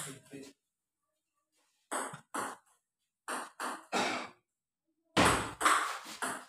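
Table tennis ball being hit back and forth in a rally, struck by paddles and bouncing on the table: a handful of sharp knocks about a third to half a second apart. A louder, longer sound follows near the end.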